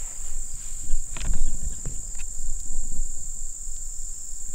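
Steady high-pitched chirring of insects in the grass, with a few irregular low thumps and rustles close to the microphone, the loudest about a second in.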